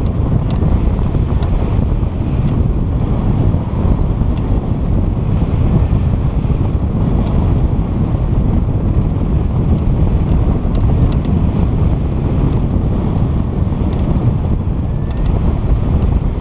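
Loud wind buffeting the microphone, a steady low rumble, with a few faint clicks here and there.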